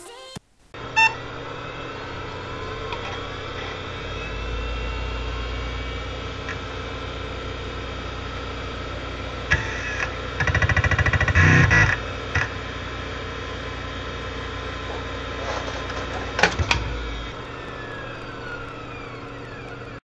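Fujitsu M2261E 5.25-inch ESDI hard disk drive powering up and shutting down. A click about a second in, then the spindle motor spins up with a rising whine into a steady hum, and a loud burst of rapid clicking and buzzing comes from the drive about ten seconds in. Clicks near the end are followed by the hum stopping and the whine falling as the platters spin down.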